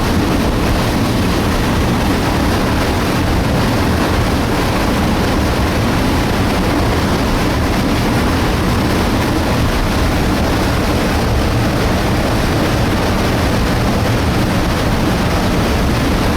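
Debris flow of mud, water and rocks rushing down a mountain torrent channel: a loud, steady rushing noise with a deep rumble that does not let up.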